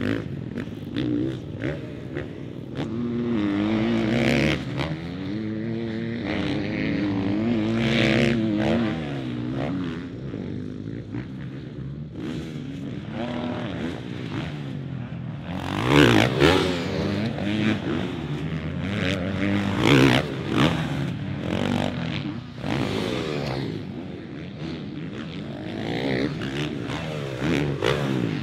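Motocross bike engines revving up and down around a dirt track, their pitch rising and falling as the riders throttle on and off over the jumps. The loudest passes come about 16 and 20 seconds in.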